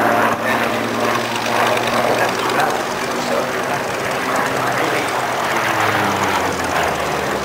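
Vought F4U Corsair flying overhead, its Pratt & Whitney R-2800 radial engine running steadily.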